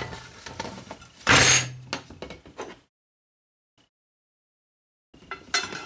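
Metal parts of an old Stanley No. 7 hand plane dropped into an upright PVC pipe, clunking hollowly as they slide down and land. The loudest drop comes about a second and a half in, followed by smaller clatters. After a couple of seconds with almost no sound, metal clinking starts again near the end.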